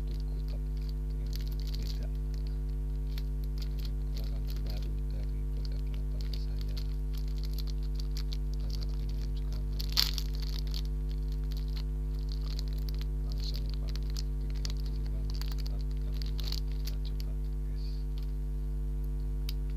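A clear plastic bag being crinkled and pulled open by hand to free a steamed bun, with small rustles throughout and one sharp, loud crackle about halfway through. A steady electrical hum runs underneath.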